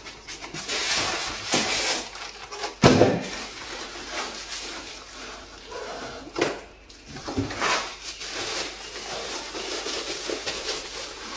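Packaging and plastic parts of an evaporative air-cooler fan being handled while it is unboxed: irregular rustling with several knocks, the loudest a sharp knock about three seconds in.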